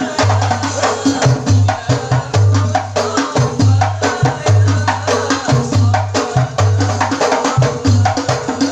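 Hadroh music: a percussion ensemble of frame drums with sharp slaps over a deep, booming bass drum in a steady, driving rhythm.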